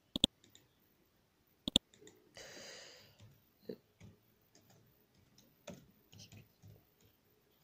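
Computer mouse clicking twice, each a sharp press-and-release, then a short breathy rush of noise, followed by soft, uneven keyboard typing.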